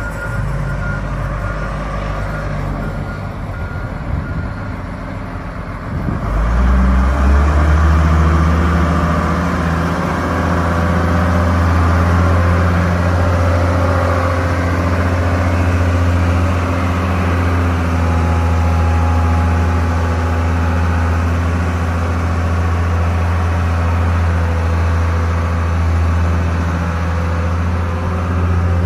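1995 Case 621B wheel loader's 5.9-litre Cummins diesel running as the machine drives; about six seconds in the engine revs up and holds at a higher, louder steady speed. A backup alarm beeps during the first few seconds.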